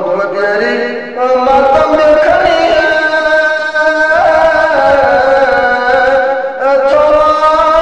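A man singing a Balti-language qasida in long, drawn-out ornamented notes, with brief pauses about a second in and again near the end.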